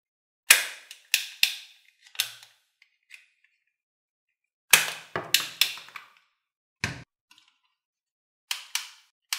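Toy guns firing: about a dozen sharp cap-gun-like cracks, each with a short fading tail, in quick clusters of two to four.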